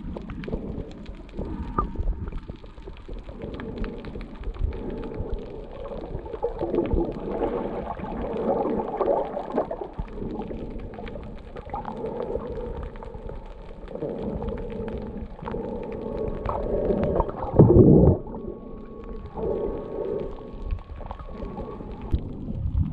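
Muffled underwater sound picked up by a submerged camera in its waterproof housing: shifting water movement, with a brief louder surge about 17 seconds in and a faint steady tone over the last several seconds.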